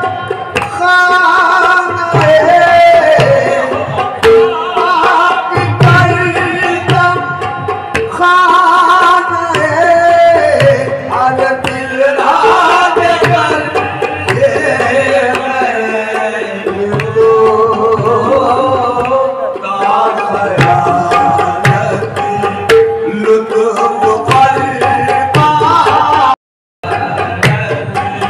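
Qawwali music: sung vocals over harmonium with tabla hand-drumming. The sound cuts out briefly near the end.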